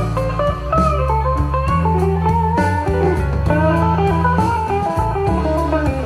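Blues music with a bending, sliding electric guitar lead over a steady bass line, played back through a single-ended triode tube amplifier and loudspeakers for a listening test.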